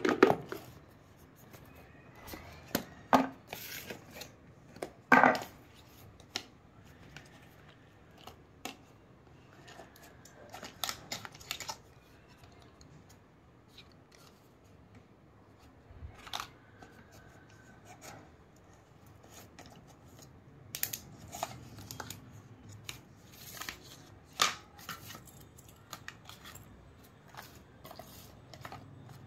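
Cardboard packaging of a glucometer kit being handled and unpacked: scattered taps, clicks and rustles as a box lid is lifted and small boxes are taken out and set down, loudest in the first few seconds.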